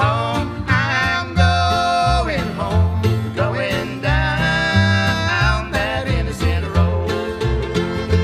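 Old-time string band music, instrumental: banjo and guitar over a steady bass line that changes note regularly.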